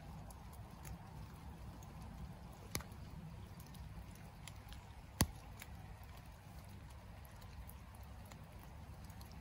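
Small handling sounds of jelly ear mushrooms being cut from wood with a small knife and gathered among twigs and leaf litter: faint ticks and rustles, with two sharp clicks about three and five seconds in, over a low steady rumble.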